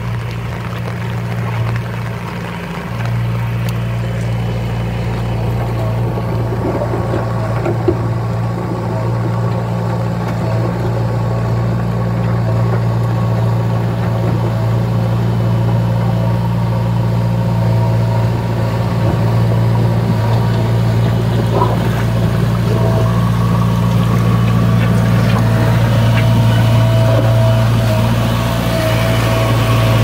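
JCB 3DX backhoe loader's 49 hp diesel engine running with a steady hum, growing gradually louder as the machine comes closer. A thin higher whine wavers near the end.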